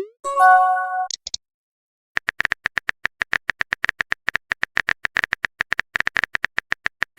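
Phone messaging sound effects: a short rising swoop and a chime right at the start, then a long run of rapid, sharp keyboard-tap clicks from on-screen typing.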